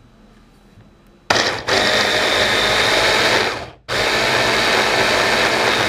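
Small electric chopper (blender bowl attachment) running in two bursts of about two and a half seconds each, with a short break between, its blades pureeing boiled carrots and onion.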